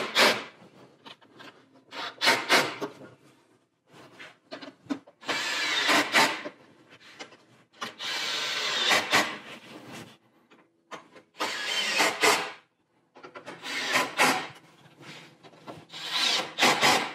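Cordless drill driving T30 Torx screws into the front bumper's top mounting points. It runs in a string of short whirring bursts, about one every two seconds, as each screw is run in and snugged tight.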